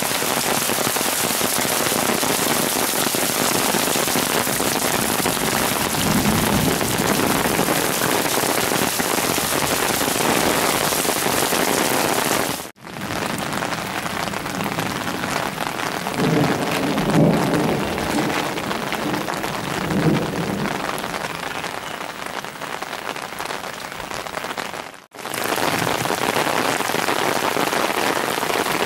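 Heavy rain pouring steadily onto a flooded street, a dense hiss of drops splashing on water and pavement. Low rumbles come in twice, briefly around a quarter of the way in and longer past the middle. The sound cuts out for an instant twice.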